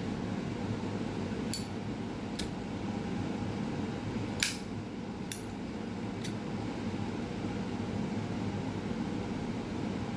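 Steady mechanical background hum, broken by five light, sharp clicks spaced about a second apart in the first six seconds; the one near the middle is the loudest.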